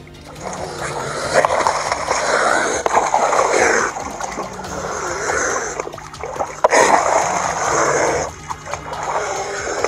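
Water splashing and sloshing in uneven surges as a big cat swims through the lake beside a boat, over a faint steady low hum.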